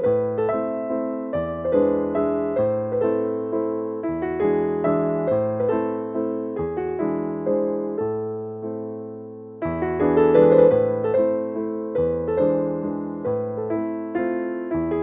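Background piano music: a steady run of struck notes over a bass line, with a new, louder phrase starting about ten seconds in.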